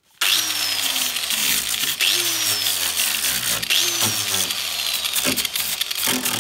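An angle grinder with a sanding disc starts up and grinds down the top of a cured fibreglass patch, prepping it for filler. A dense grinding noise runs throughout, and the motor's high whine jumps up and then slowly sags three times.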